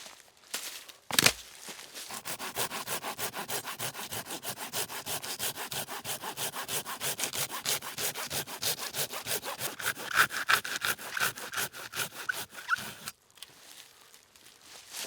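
Hand saw cutting through wood in quick, even strokes, about four or five a second, with a faint ringing from the blade near the end before the sawing stops suddenly. One sharp knock comes just before the sawing starts.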